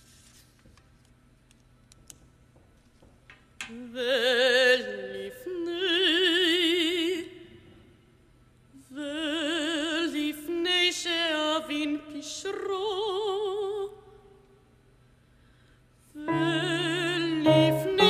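A woman singing in a classical, operatic style with wide vibrato, in long held notes and phrases separated by short pauses, after a quiet first three and a half seconds.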